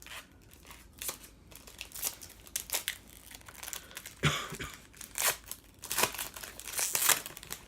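Wrapper of a Panini Prism football card pack crinkling and tearing as it is opened by hand, in irregular bursts that grow louder about halfway through.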